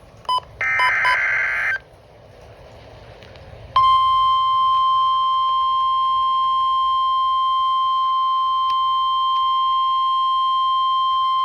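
Emergency Alert System SAME header ending in a short buzzy burst of digital data, then after about two seconds the steady 1050 Hz NOAA Weather Radio warning alarm tone sounding continuously. The tone announces that a new warning is about to be read.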